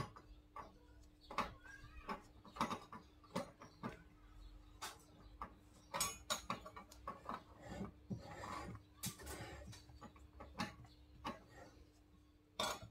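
A spoon knocking and scraping against a glass mixing bowl as thick cake batter is folded by hand, in irregular taps every half second to a second with soft wet scraping between them.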